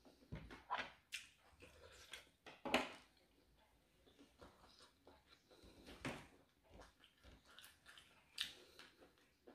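A person eating rice with spicy pumpkin and pork curry: quiet chewing with scattered short clicks and knocks, the loudest a little under 3 s in.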